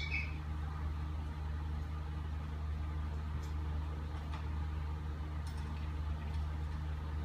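A steady low hum, with a few faint light clicks over it.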